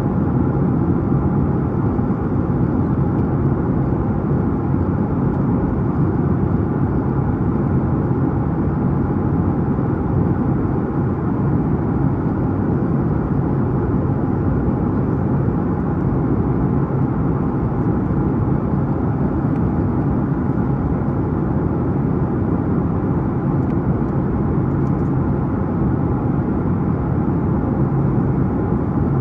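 Steady cabin noise of a Boeing 737-9 MAX climbing: its CFM LEAP-1B turbofans at climb power and air rushing past the fuselage, with a faint steady hum in the mix.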